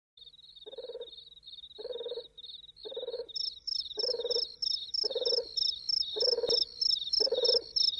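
A frog croaking in short calls about once a second over steady high insect chirping, with a second, higher-pitched insect joining about three seconds in; the sound fades in at the start.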